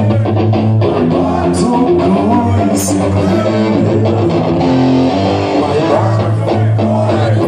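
A rock band playing live, heard from the crowd in a club: electric guitars and bass guitar with drums, with a few bright cymbal-like strikes.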